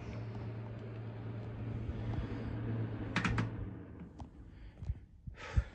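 Electric fan heater running with a steady hum and fan rush, switched off by its control knob about four seconds in, the fan noise then dying away. A few clicks during it, and a loud thump near the end.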